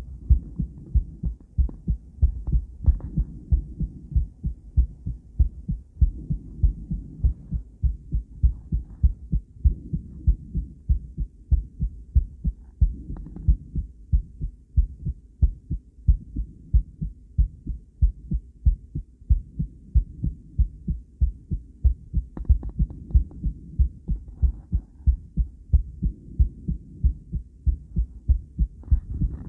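A woman's heartbeat heard through the Doppler audio of a cardiac ultrasound: a steady, regular run of low pulsing beats, about three a second.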